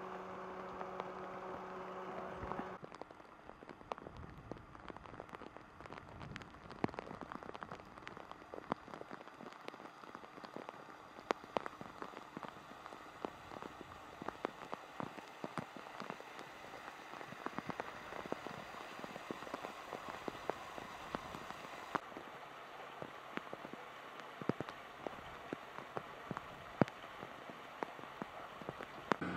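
Steady rain falling on wet concrete pavement and barriers: an even hiss with many sharp individual drips and splats. A steady low hum sits under the rain for the first few seconds and cuts off suddenly about three seconds in.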